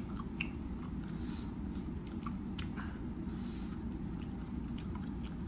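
Soft, faint eating sounds: chewing and mouth smacks, with a few small clicks as meat is pulled off a chicken wing bone by hand, over a steady low background hum.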